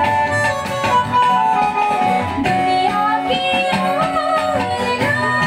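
Live song with acoustic guitar accompaniment and a woman's singing voice coming in about halfway through.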